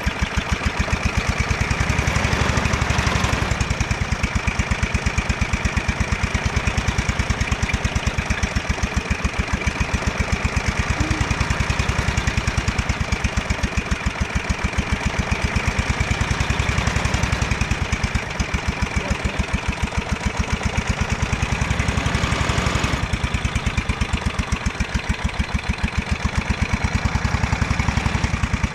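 Small lawn tractor engine running with its oil drained out, firing in a steady, regular beat.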